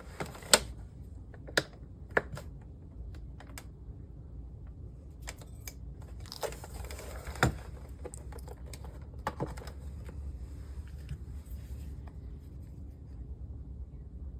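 Handling noise as a computer monitor is set on a scale and weighed: scattered sharp clicks and light plastic knocks, with a brief rustle about six seconds in.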